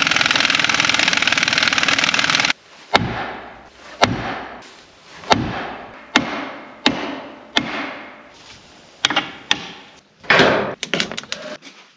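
An impact wrench rattles for about two and a half seconds on the tractor's front axle tie rod joint. Then come about eight hammer blows on steel, each ringing out, spaced about a second apart. Near the end a sheet-metal shed door and its latch clatter.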